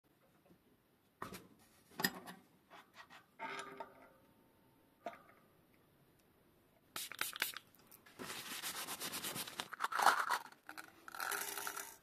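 Hand-tool work on a bicycle front hub: a few sharp metallic clicks and clinks, a short ringing note, then longer scraping and rasping noises through the second half.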